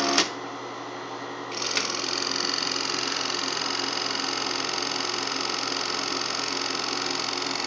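Bell & Howell Autoload 8mm projector running without film, its mechanism clattering steadily. The mode knob clicks just after the start, leaving a quieter run, then clicks again near two seconds in, after which the projector runs louder with a steady high whine.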